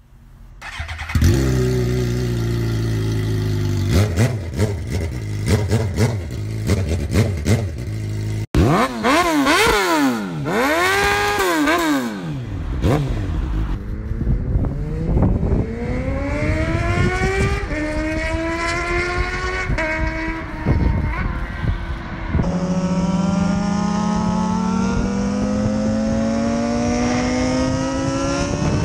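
2009 Suzuki GSX-R 750 inline-four with its catalytic converter cut out, running loud on the open mid pipe. First it runs steadily with a string of sharp pops. Then a sport bike passes at speed, its pitch rising and falling, and then the bike accelerates hard through the gears, the engine note climbing and dropping back at each shift.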